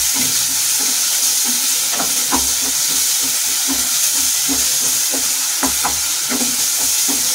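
Onion and spice masala sizzling in hot oil in a non-stick kadhai as it is fried down. A steady hiss runs throughout, with a wooden spatula repeatedly scraping and tapping against the pan as it stirs.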